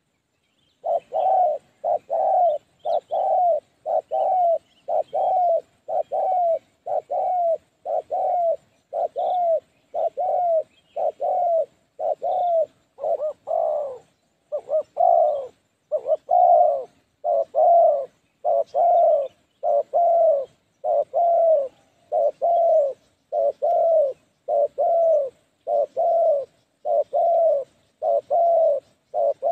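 Spotted dove cooing: a long, evenly paced series of short, low coos, more than one a second, starting about a second in.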